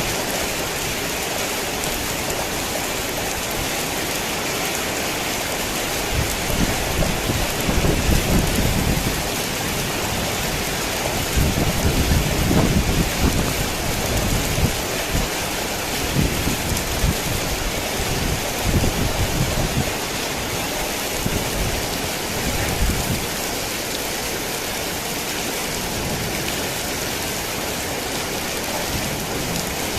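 Heavy rain falling steadily, with low thunder rumbling in long rolls through the middle, loudest about twelve seconds in.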